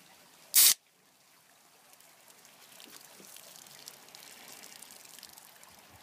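A shaken can of Coke is snapped open with a short, loud hiss of escaping gas about half a second in. Then comes a quieter, crackling fizz as the foaming soda spills out over the can's top.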